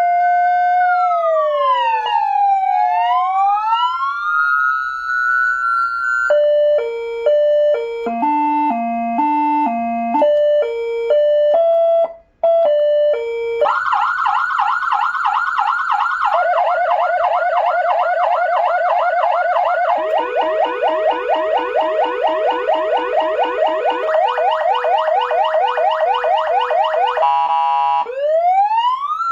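AS940 400 W electronic vehicle siren through its loudspeakers, stepping through its tones. It opens with a slow wail that falls and rises again, then switches to stepped tones at a few set pitches. From about halfway in it gives fast repeating sweeps of several a second, and near the end a rising wail.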